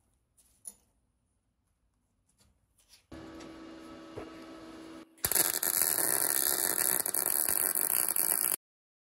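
MIG welding arc on the boiler's leaking weld being repaired: a loud, even crackling hiss for about three seconds that cuts off suddenly near the end. A quieter steady hum comes before it.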